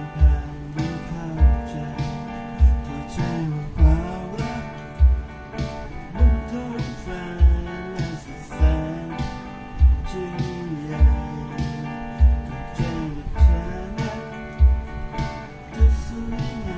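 Instrumental music: guitar over a bass line with gliding low notes, with a strong kick drum beating steadily about once every 1.2 seconds.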